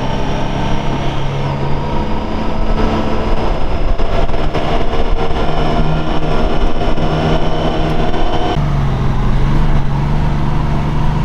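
A motor running steadily, with an even drone and rushing noise; its tone shifts slightly about eight and a half seconds in.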